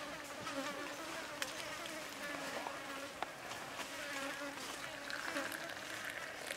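A flying insect buzzing close by, its pitch wavering, with a few small clicks. Near the end, water pours from a kettle into a cup.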